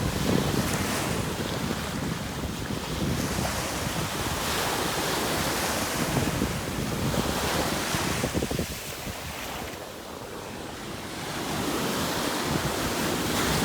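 Ocean surf washing up the beach, with wind buffeting the microphone. The wash swells and fades, easing off about two-thirds through and building again near the end.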